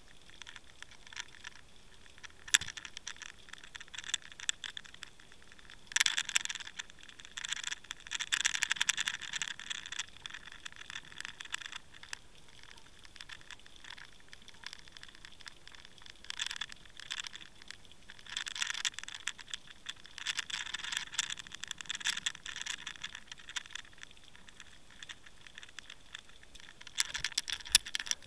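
Underwater crackling and clicking heard through a submerged camera, coming in bursts, with a sharp knock about two and a half seconds in and another at the very end.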